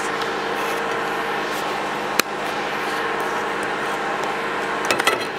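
Steady machine hum, like a fan or air conditioner, with a single sharp click about two seconds in and a few light knocks near the end.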